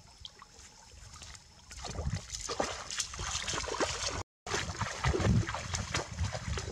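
Legs wading through shallow river water, splashing and sloshing irregularly with each step, starting about two seconds in after a faint opening.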